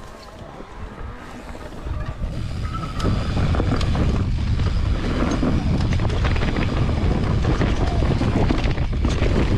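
Mountain bike ridden down a dirt trail: wind rushing over the microphone with tyre noise and clicks and rattles from the bike. It grows loud about two to three seconds in as the bike picks up speed.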